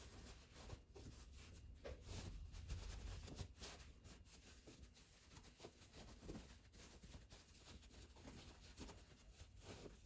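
Near silence with faint rustling and brushing of cotton fabric as a sewn oven mitt is worked into shape by hand, a little louder a few seconds in.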